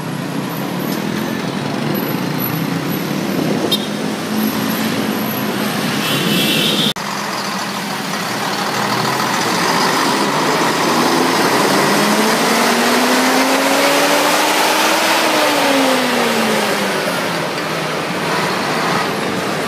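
City road traffic heard from a moving bicycle: a steady rush of engine and tyre noise. The sound cuts out abruptly for an instant about seven seconds in. Later a nearby engine climbs steadily in pitch, then drops away.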